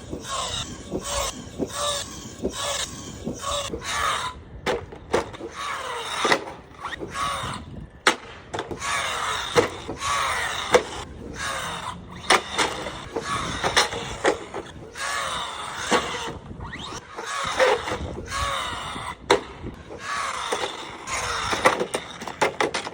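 Arrma Vorteks RC truck driving hard: its electric motor whines, rising and falling in pitch as it revs up and down, with repeated sharp knocks and clatters from jumps and landings.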